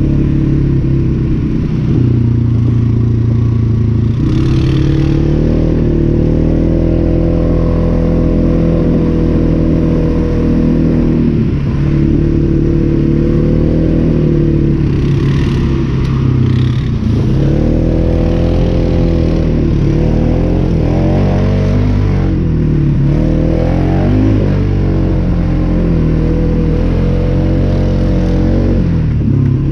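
Polaris 570's single-cylinder engine running while riding, its revs rising and falling with the throttle, dropping sharply several times and climbing back up.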